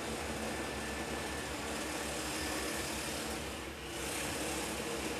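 Steady background room noise: a low hum under an even hiss, with a brief dip a little before the end.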